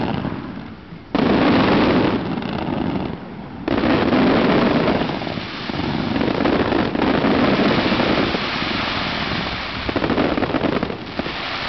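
Fireworks cakes firing a rapid barrage of shots and aerial bursts with crackling. It starts suddenly about a second in, dips briefly a couple of seconds later, then resumes as a dense, continuous volley.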